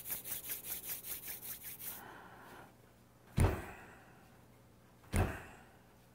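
Palms rubbed briskly together, a rhythmic dry swishing of about five strokes a second that fades out after two seconds. Then two dull, heavy thumps about two seconds apart.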